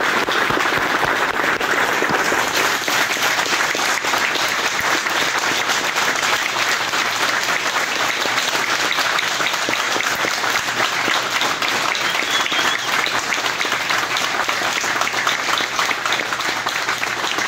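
A small group applauding: many hands clapping in a dense, steady patter.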